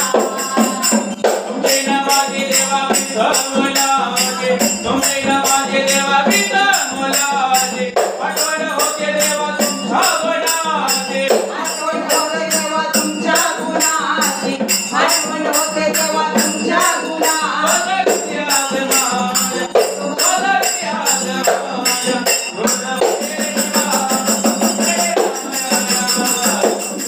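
A woman singing a devotional jagran song to Khandoba, with a steady, fast jingling percussion beat.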